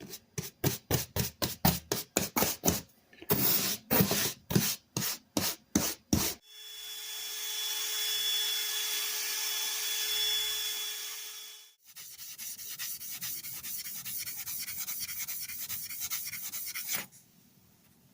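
Metal file worked in quick back-and-forth strokes over the rusty steel head of an old Craftsman hammer, about four strokes a second, with a short break. Then a power tool runs with a steady whine for about five seconds. A rougher, fast scraping follows for about five seconds and stops abruptly.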